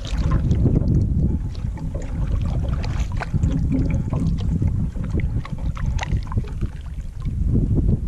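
Paddling a canoe on open water, with steady wind rumbling on the microphone and scattered small knocks and splashes from the paddle strokes.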